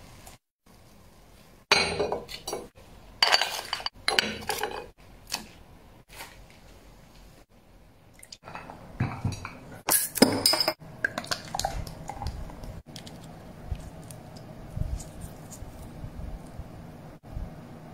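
Hard seashells and crockery clinking and clattering in several bursts of sharp clicks, loudest in the first half. Quieter handling noise follows as cooked shellfish are pried from their shells over a plate.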